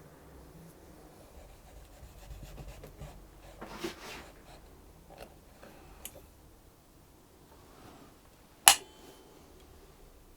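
Quiet hand-work noises at a violin maker's bench while a fingerboard is glued and clamped onto a violin neck: soft rubbing and scraping with a few light taps, and one sharp click near the end.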